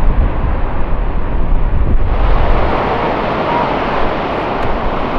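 Wind buffeting the microphone, heaviest in the first two seconds, over a steady rush of noise from the waterfall and the river in the canyon below.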